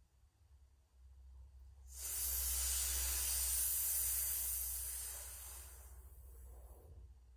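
Shitali breath: a long hissing inhale drawn through the rolled tongue. It starts about two seconds in, holds steady for about four seconds, then tails off more softly.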